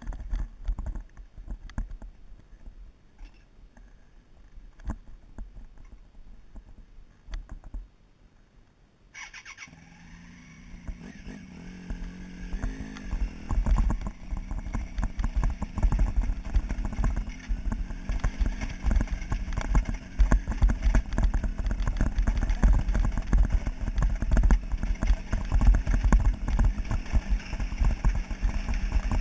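Triumph Tiger motorcycle being ridden up a loose gravel track. For the first nine seconds there are only faint scattered ticks. Then engine and tyre noise come in suddenly and grow louder, the engine running steadily under a dense rumble from the tyres on the stones.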